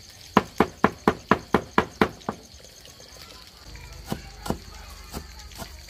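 Large knife chopping green herb stalks on a round wooden chopping block: a quick, even run of about nine chops, about four a second, then a few slower, softer chops.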